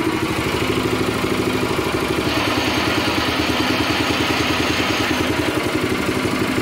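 Predator 212cc single-cylinder four-stroke engine running steadily at low speed, its exhaust firing in an even, rapid beat.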